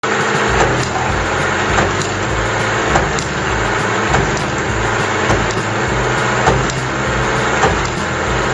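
Motorised building-block marble run running: a steady small-motor hum under a constant rattle of plastic balls rolling and clicking along plastic tracks and lift parts.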